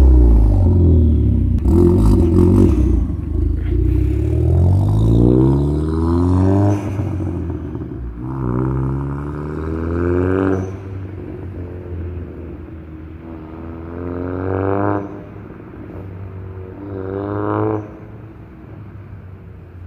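Hyundai Avante Sport's 1.6-litre turbo four-cylinder, ECU-mapped and fitted with a performance exhaust, being revved repeatedly. The revs climb and are dropped again several times, with a short crackle about two seconds in. The later revs are shorter and cut off sharply, with a low rumble left between them.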